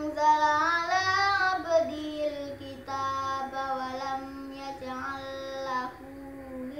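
A boy's voice chanting Qur'an recitation in the melodic tartil style, with long held notes that rise and fall, in phrases separated by short pauses for breath.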